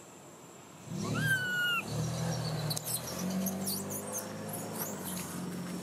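A baby long-tailed macaque gives one high, slightly falling cry about a second in. After it comes a low steady hum with faint scratchy rustles.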